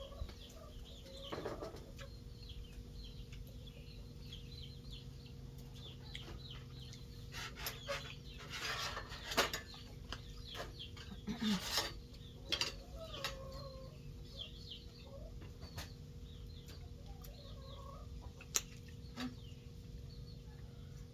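Chickens clucking, with many short calls scattered throughout and a few louder rustles and knocks around the middle, over a faint steady hum.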